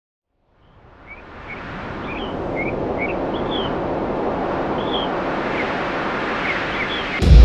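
Outdoor ambience fading in: a steady rush of wind with small birds chirping now and then. Near the end, loud distorted electric guitar music cuts in suddenly.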